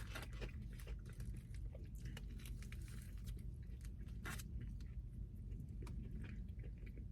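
A person chewing a mouthful of burger close to the microphone, with short irregular crunching clicks over a steady low hum.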